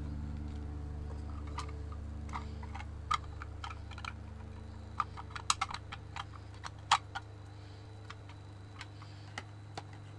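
Hard plastic and acrylic desk organizers being set down and shifted into place: a scattered run of sharp clicks and taps, bunched about five to seven seconds in, with the loudest tap near seven seconds.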